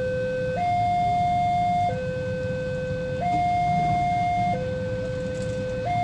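Railway level-crossing warning alarm sounding while the barrier is down, signalling an approaching train. It is a steady electronic two-tone signal that alternates between a lower and a higher tone, each held for just over a second, with a low steady rumble underneath.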